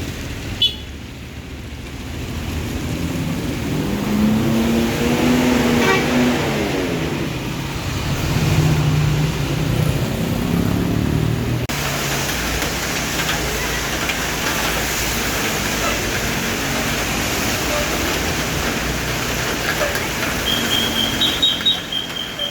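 Road traffic: a heavy vehicle's engine passes close, swelling from about two seconds in with its pitch sliding, followed by steady traffic noise after an abrupt change about halfway through. Near the end a high beeping tone sounds in short repeated pulses.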